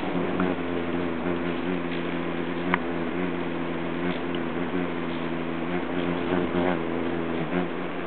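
Hummingbirds' wings humming steadily as they hover around a nectar feeder, with a few short high chips and a quick rising squeak partway through.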